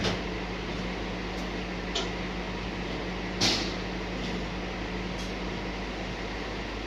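Heavy machinery running with a steady hum while a steel container is handled, with sharp metal clanks and knocks, the loudest about three and a half seconds in.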